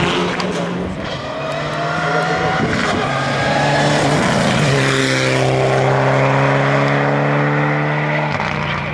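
Mitsubishi rally car engine coming closer under hard acceleration, then holding a loud, steady note at full throttle as it passes; the note cuts off suddenly near the end as the driver lifts off.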